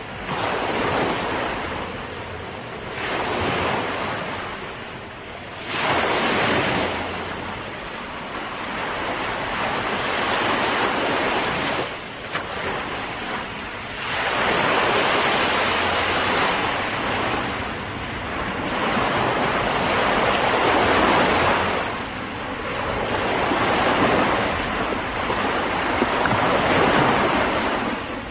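Seashore ambience: waves breaking and washing onto the shore, swelling and fading again every few seconds, with wind.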